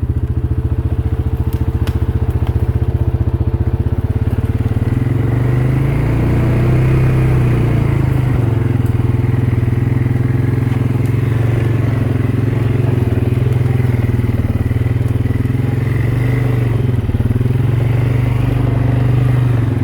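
Motorbike engine running steadily as it rides along a trail, with a pulsing low hum that rises a little a few seconds in and again near the end.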